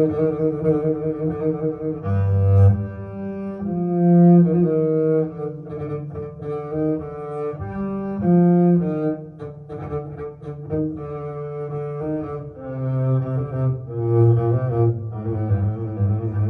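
Recorded music of low bowed strings, cello and double bass, playing slow sustained notes, played back over a hi-fi system with Tannoy Westminster loudspeakers.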